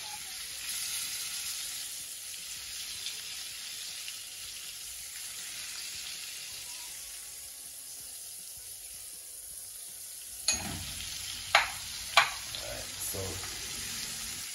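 Coconut-flour-battered crayfish deep-frying in hot oil, a steady sizzle. Three sharp knocks of a utensil against the pan come about ten to twelve seconds in.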